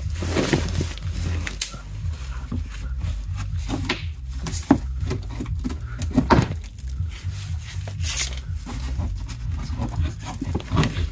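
Plastic wheel-arch liner being handled and pulled at by gloved hands: irregular rubbing, scraping and clicks of plastic.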